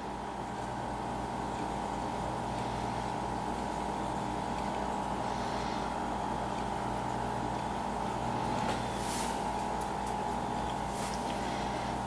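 A steady hum with a constant high tone, and a couple of faint ticks about three-quarters of the way through.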